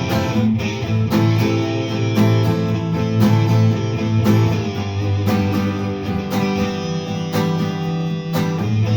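Guitar music: an instrumental passage of a rock song played on strummed guitars, with a steady beat of strokes about twice a second.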